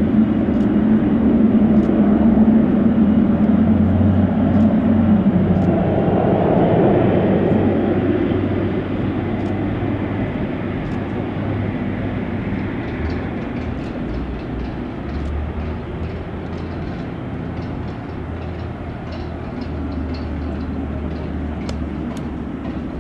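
Jet airliner engines rumbling steadily, loudest at first and then easing off as the aircraft moves away.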